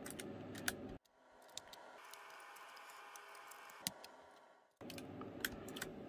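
Keycaps being pressed onto the hot-swappable blue optical switches of a Keychron K3 low-profile keyboard: about four faint, sharp plastic clicks, spaced apart.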